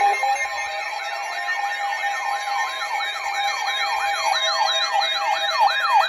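Several weather alert radios sounding their alarms together for a severe thunderstorm warning: a fast, siren-like warble sweeping up and down about three times a second over steady alert tones.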